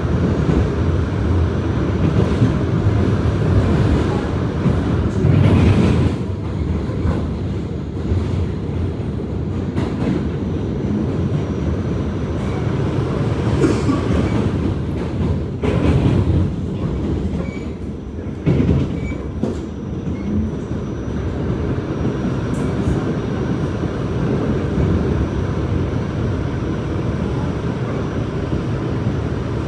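R46 subway train running at speed: a steady low rumble, with the wheels clacking sharply over rail joints a few times.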